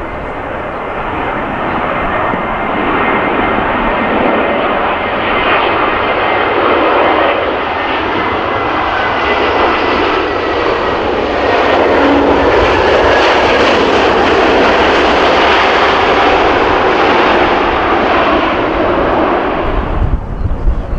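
Airbus A320neo with Pratt & Whitney geared turbofan engines landing: a steady rushing jet noise that grows louder as the airliner touches down and rolls out close by. It is loudest in the second half, then cuts off suddenly near the end.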